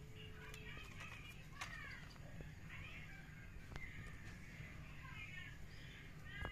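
Small birds chirping over and over, short quick calls, with a few faint clicks and a low steady hum underneath.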